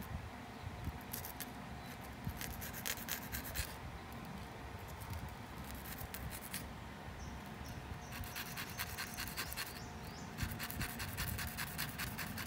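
Small steel fish hook being rubbed against a sharpening stone: quick rasping strokes in bursts, one about two to four seconds in and a longer run from about eight seconds on. The hook's point is being ground to a sharp tip.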